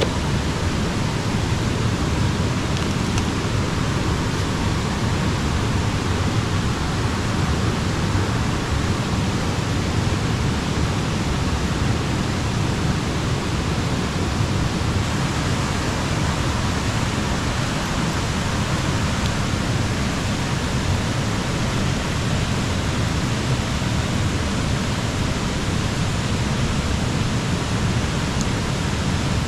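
Stream water rushing, a steady, unbroken noise.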